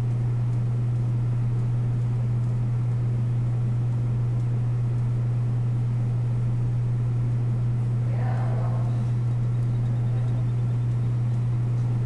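Steady low mechanical drone, constant in pitch and loudness, with a short fainter sound about eight seconds in.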